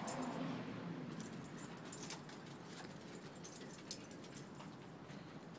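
Metal collar and leash hardware on dogs jingling in scattered light clinks as the dogs move about.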